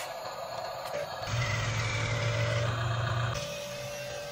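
Small electric motor of a Huina 1318 RC lowboy trailer running for about two seconds with a steady hum and a thin high whine, lifting the rear loading ramps.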